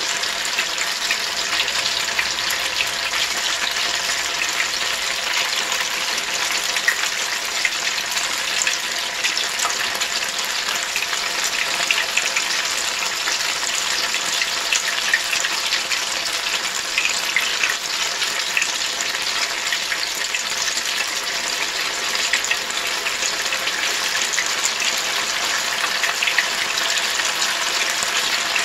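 Strauben (funnel-cake) batter deep-frying in canola oil at 350 °F: a steady sizzle with scattered small crackles and pops.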